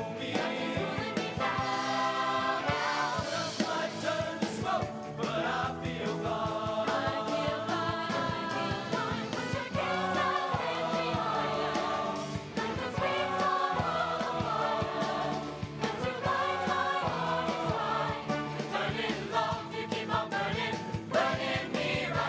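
Show choir singing in harmony over a band backing, with a regular percussive beat throughout.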